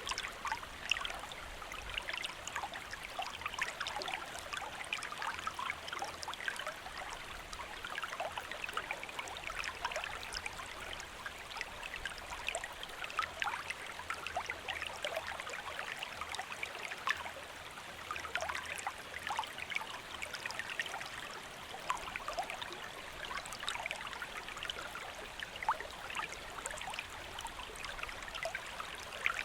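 Shallow stream flowing over rocks: a steady babble and trickle of water, full of small continuous splashes.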